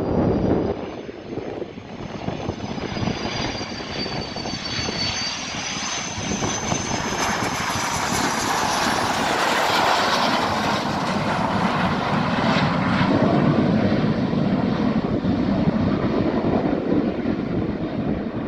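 Two Aermacchi MB-339 jet trainers flying overhead in formation, their Rolls-Royce Viper turbojets making a high whine at first. The noise is loudest about halfway through as they pass, then turns to a deeper rumble over the last few seconds.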